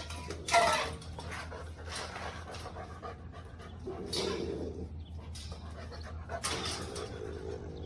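Rottweilers panting hard during rough play between an adult and a puppy, with a short sharp cry from one dog about half a second in, then ongoing panting and scuffling.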